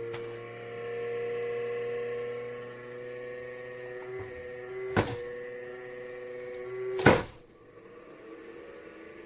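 Creality Ender 3 V3 SE 3D printer running, its stepper motors and fans giving a steady whine of several held tones that shift in pitch as the moves change. Two sharp clicks cut in about five and seven seconds in, the second the louder.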